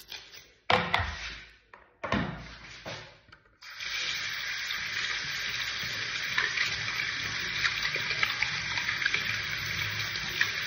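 Two short knocks, then about four seconds in a tap starts running steadily into a sink, rinsing the cleaning paste off silver bangles.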